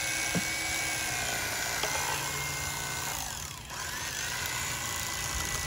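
Electric fillet knife running, its reciprocating twin blades cutting through a bass fillet along the backbone. The motor's whine dips in pitch and loudness for a moment about three and a half seconds in, then picks back up.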